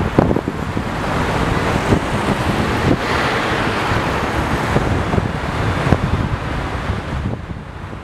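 Wind buffeting the microphone of a camera mounted on the outside of a moving car, over road and traffic noise from the car and the vehicles around it. The noise fades down near the end.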